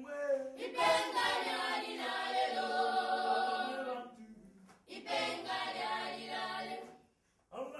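Local church choir singing together in many voices, in long sung phrases: one runs to about four seconds in, a short break follows, then a second phrase starts about a second later.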